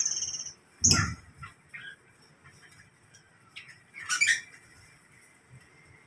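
Caged birds calling: scattered faint chirps, with a loud short squawk about a second in and a harsher call about four seconds in.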